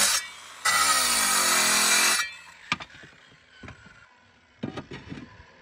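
Angle grinder cutting a clay roof tile to take a piece off so it fits around the flashing: the grinder cuts, eases off briefly, then cuts again with its motor pitch dipping under load and recovering, and stops about two seconds in. A few light knocks follow.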